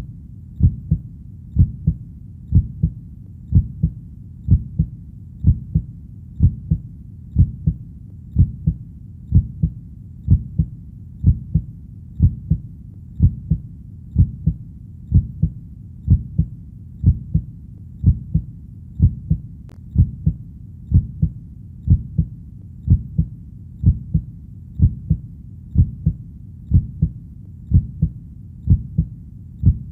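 Heartbeat, a steady lub-dub of paired low thumps at about one beat a second, over a faint low background hum.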